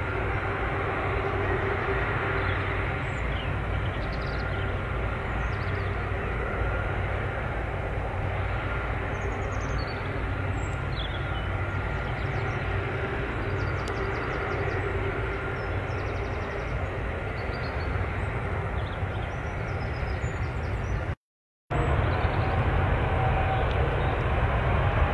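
Jet airliner engines running steadily, a low rumble with a faint whine at several pitches. After a short cut-out about 21 seconds in, a whine rises slowly in pitch near the end.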